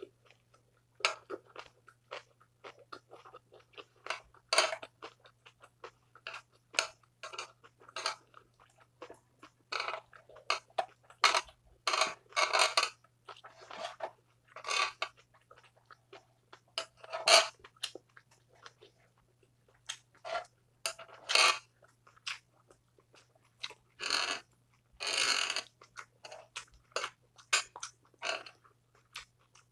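Close-up eating sounds: a mouthful of grilled pork belly being chewed, with irregular wet smacks and crunches, some louder than others. A steady low hum runs underneath.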